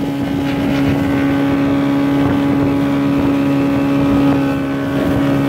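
Outboard or inboard engine of a small open runabout running at a steady pitch while the boat is underway at speed.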